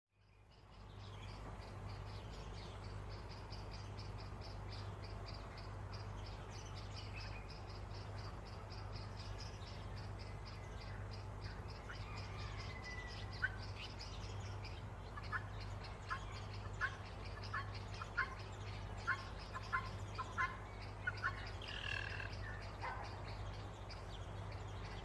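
Bulbuls chirping: a rapid, steadily repeated high trill through the first half, then a run of short, sharp chirps and a few brief whistles in the second half, over a low steady hum.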